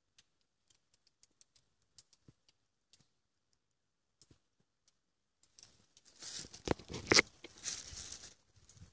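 Footsteps crunching on loose stones and dry leaves. They start about six seconds in, after near silence broken by a few faint ticks, and two sharp clicks stand out in the crunching.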